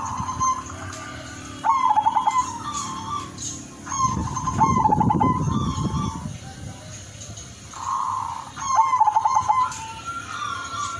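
Zebra dove (perkutut) of the pale 'udan mas silver' colour form singing its cooing song: three phrases of rapid, stuttering coos, about two seconds in, at four seconds and near nine seconds. A low rumble sits under the middle phrase.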